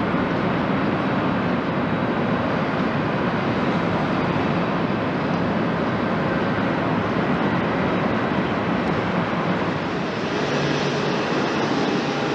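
Jet engine noise from a twin-engine Boeing 777-200ER climbing out after takeoff, a broad steady rumble. About ten seconds in, it cuts to a steadier airport background hum with a faint low tone.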